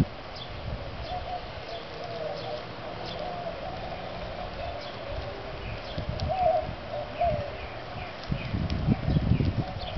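A dove cooing over and over, with small birds chirping faintly. From about eight seconds in, low gusty rushing bursts come in.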